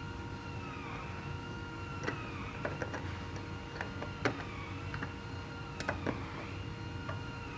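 Scattered light metallic clicks of a wrench working a steel clamp bolt, loudest about four seconds in. A faint warbling tone that dips in pitch about once a second runs underneath.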